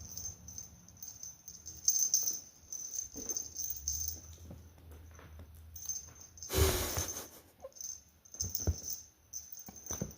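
Cats playing with a toy: light scattered rattling and scuffling, with a louder rustling burst about six and a half seconds in and a few soft thumps after it.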